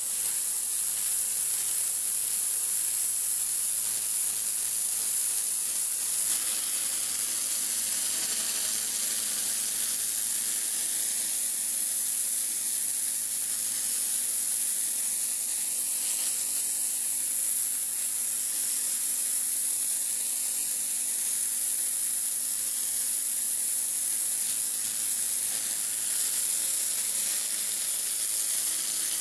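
Karcher K3.550 pressure washer with its rotating 'dirt blaster' lance blasting a high-pressure water jet onto stone patio slabs. It is a steady, unbroken hiss of spray hitting the stone.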